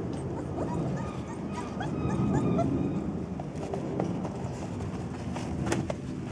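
Young puppies whimpering and yipping in short high squeaks, a quick run of them between about one and a half and three seconds in, over a low rustling background. A sharp tap sounds near the end.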